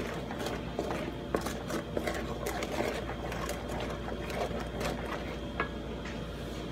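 A spatula stirring thick tomato curry sauce in a metal wok, with irregular taps and scrapes against the pan, more of them in the first few seconds, over a steady hum.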